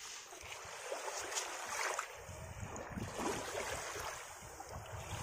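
Small waves washing up over shoreline sand, with wind rumbling on the microphone and a few faint scrapes of hands digging in wet sand.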